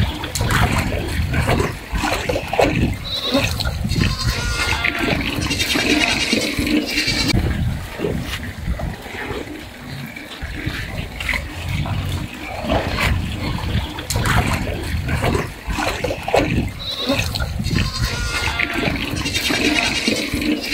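Young pigs feeding on sweet potato leaves: steady chewing, crunching and rooting with grunts, and high-pitched squeals about four to seven seconds in and again near the end.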